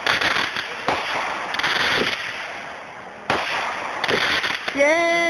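Consumer fireworks going off: a series of sharp bangs, each followed by crackling and hissing. Near the end a steady whistling tone begins.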